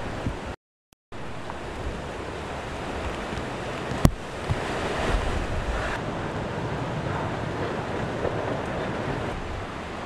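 Hurricane winds blasting across the microphone in a steady roar, with a sharp knock about four seconds in. The roar cuts out briefly about half a second in.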